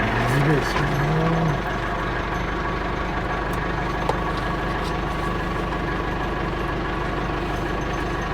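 Backhoe engine idling steadily at low speed. A brief wavering whine rises and falls over the first second and a half.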